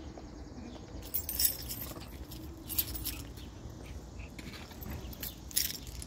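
Brief rustles of leaves and vines brushing past, a few times, over a steady low background rumble.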